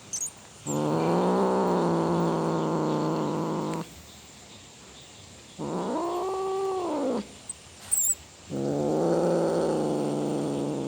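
A domestic cat yowling: a long, low, drawn-out call, then a shorter, higher call that rises and falls, then another long, low call. There are brief, sharp, high chirps right at the start and about eight seconds in.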